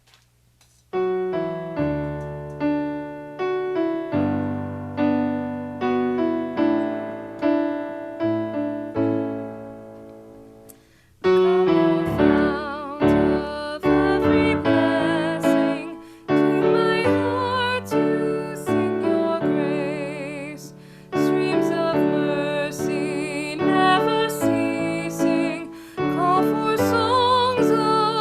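Piano music: struck chords starting about a second in, then after a short break about eleven seconds in, fuller playing with a melody line that wavers with vibrato above the piano.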